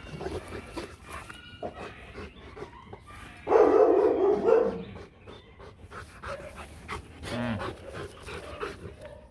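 A Rottweiler vocalizing: one loud, drawn-out call of about a second, midway, with quieter dog sounds before and after.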